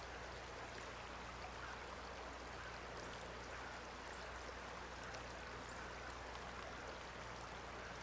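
Faint, steady rush of flowing river floodwater.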